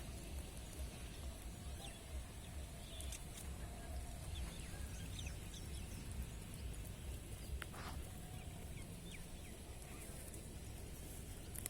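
Rural outdoor ambience: a steady low rumble with scattered short bird or fowl calls throughout.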